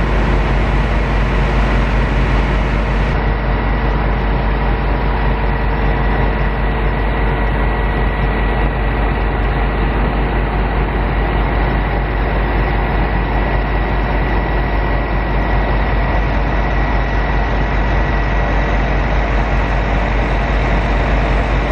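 Heavy farm machinery's engine running steadily under harvest work, a deep constant rumble with a thin steady whine above it.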